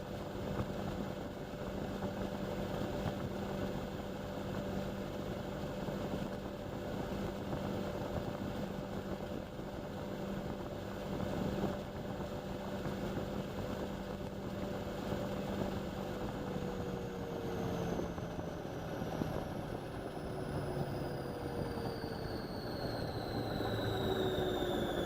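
Indesit washing machine running, a steady motor hum and drum rumble. About two-thirds of the way in, a motor whine starts falling in pitch, getting slightly louder near the end.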